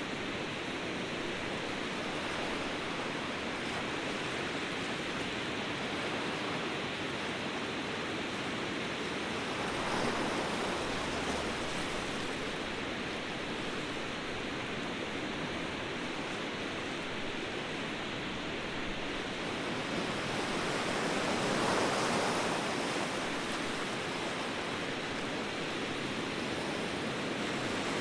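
Ocean surf: a steady wash of breaking waves, with swells growing louder about a third of the way in and again about three-quarters of the way through.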